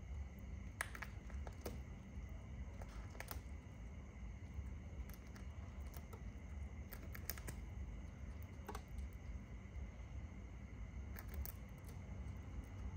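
A shikra plucking and tearing at a pigeon carcass with its beak: scattered, irregular small clicks and snaps as feathers and flesh are pulled, over a low steady background rumble.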